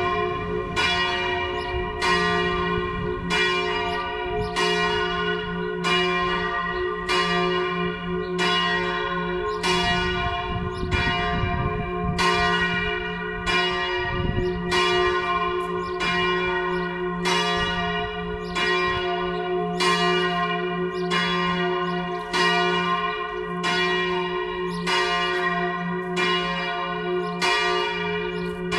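A four-bell church ring in G-flat, swung in the Tyrolean manner, ringing all together in full peal. The strikes fall a little more often than once a second and overlap into a continuous wash of ringing, over a steady deep hum from the largest bell.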